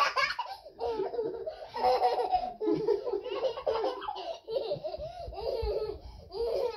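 Toddler laughing in repeated high-pitched bursts, one after another.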